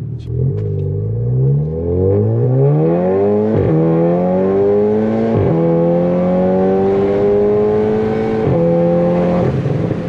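Volkswagen Golf 7.5R's turbocharged 2.0-litre four-cylinder with a custom exhaust under full-throttle acceleration, heard from inside the cabin: the revs climb steeply from about half a second in, then keep climbing through the gears, with a short crack at each of about three upshifts.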